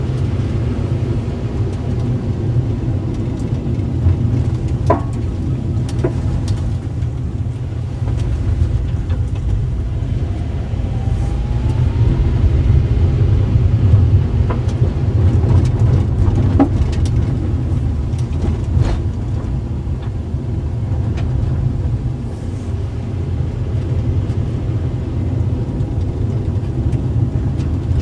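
A car's engine and road noise heard from inside the cabin while driving slowly: a steady low rumble, with a few sharp clicks and knocks along the way.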